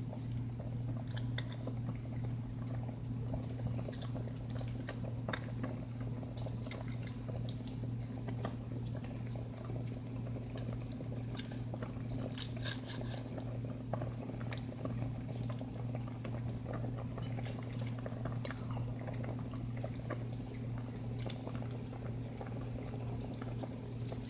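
Scattered light clicks and taps of kitchen utensils against a pot and dishes while seasoning is cut and mixed into the cooking okra, over a steady low hum.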